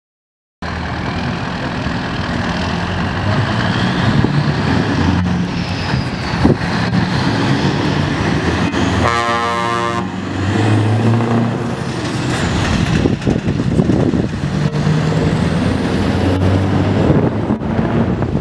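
Scania R500 V8 diesel truck engine running as the tractor and livestock trailer drive across a lot, with one short air-horn blast about nine seconds in.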